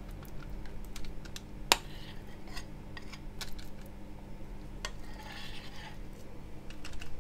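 A kitchen utensil knocking and scraping against a bowl as thick blondie batter is scraped out into a small glass baking dish: scattered sharp clicks, the loudest about a second and a half in, and a short scrape about five seconds in.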